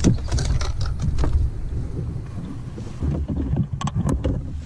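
Wind rumbling on the microphone, with knocks and clunks in a canoe as a just-landed bass is handled: a cluster near the start and more about four seconds in.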